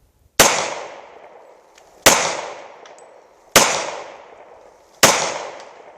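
Four pistol shots of hand-reloaded .40 cartridges, fired at a steady pace about a second and a half apart, each followed by a decaying echo. The reloads fire normally every time.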